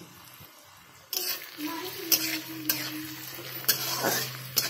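Sliced onions and green chillies sizzling in hot oil in a kadai as a metal spatula stirs them, clicking and scraping against the pan about four times. The sizzle starts loudly about a second in, with a steady low hum underneath.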